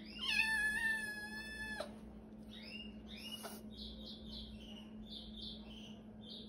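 Young feral kitten meowing: one long meow of nearly two seconds, then two short meows that rise in pitch.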